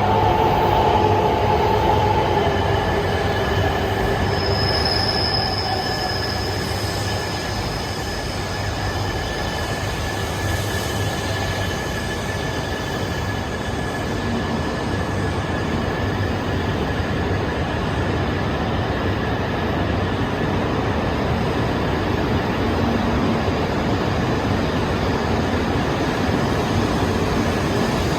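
E2 series Shinkansen train running in slowly as it pulls into a station, with a whine falling in pitch over the first few seconds and a long, steady high squeal.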